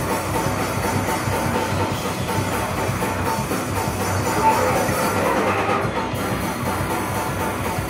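Hardcore band playing live: drum kit and distorted guitars in a dense, steady wall of sound.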